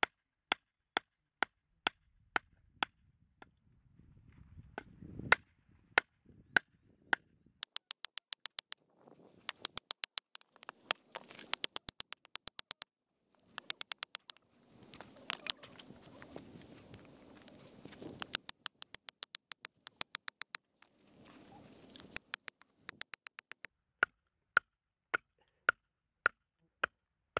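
Small hatchet knocking repeatedly into a log on a chopping stump to split it: sharp wooden knocks, about two a second at first, then in fast runs, with rougher noise between runs as the wood splits.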